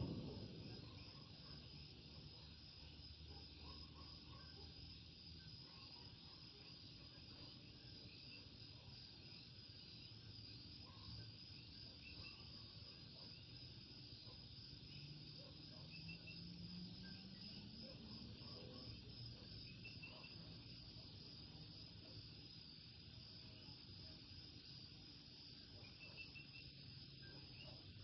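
Faint chorus of Puerto Rican coquí frogs calling, a steady high chirping with scattered short two-note calls. A low hum rises in pitch about halfway through.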